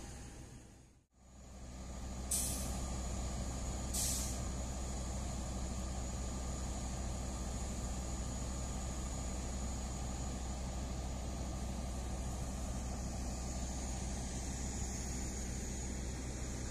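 Diesel-hauled passenger train passing close by: a steady low engine hum with the rolling noise of wheels on rail, and two short hisses about two and four seconds in. The sound fades out and back in about a second in.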